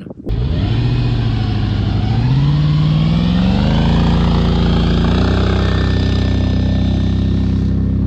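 4.8-litre LS V8 engine of a V8-swapped Yamaha WaveRunner FZR jet ski running under throttle. Its pitch climbs in steps over the first five seconds, then holds steady.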